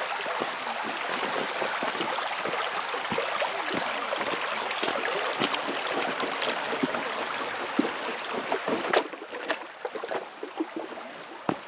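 Shallow creek running over gravel and stones, a steady rushing. About nine seconds in it drops away, leaving scattered crunching steps on gravel.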